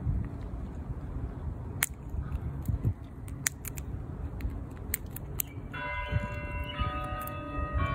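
A fox squirrel gnaws food held in its paws, with a few sharp clicks over a low rumble. About three-quarters of the way through, bell tones like church bells ringing start and carry on, changing about once a second.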